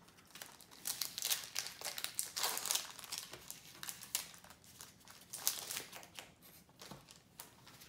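Foil wrapper of a Yu-Gi-Oh! booster pack crinkling and tearing in the hands as it is opened, a quick, irregular run of crackles.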